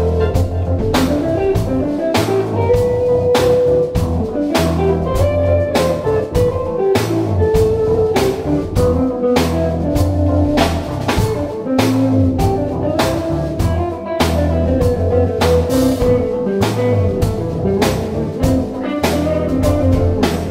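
Jazz-fusion band playing an instrumental live in a small rehearsal room: electric guitar, electric bass, keyboard and a drum kit, with a melodic line of held notes over a bass line and a steady beat of drum and cymbal hits.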